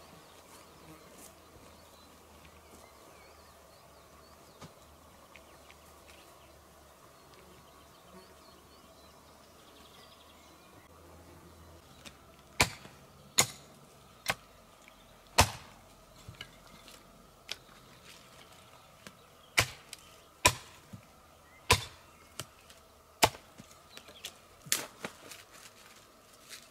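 Small axe chopping wood, about a dozen sharp, separate strikes at uneven intervals starting about halfway in, after a stretch of faint outdoor background.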